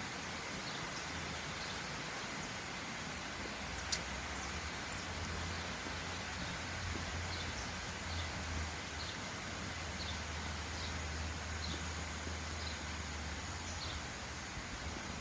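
Steady rush of a small stream, with a bird giving short high chirps over and over, and one sharp click about four seconds in.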